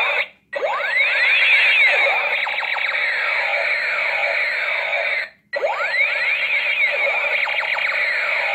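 Electronic sound effects from light-up toy guns: many overlapping rising and falling sweeps, like a siren or laser effect, which cut out briefly about half a second in and again about five seconds in before starting over.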